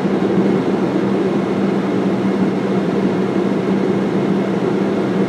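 Idling vehicle engine, a steady even hum with no change in pitch or loudness.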